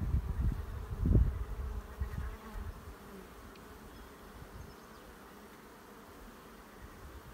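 Honeybees humming around an open hive while a brood frame is held out of it, a faint steady buzz. A few low thumps in the first second or so, the loudest about a second in.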